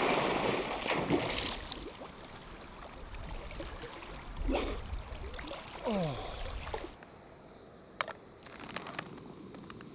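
A swimmer splashing in shallow lake water, loudest at the start as he ducks under, then quieter water movement with two more splashes. It stops abruptly, and near the end come a few sharp clicks.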